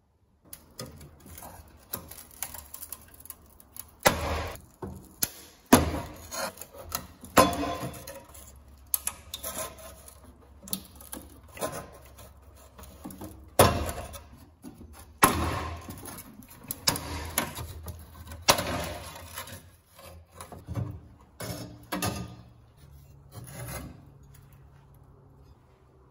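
A thin metal blade scraping and prying at the rusted edge of a cast-iron grate on a sheet-metal stove top: irregular gritty metal scrapes with several sharp metallic knocks.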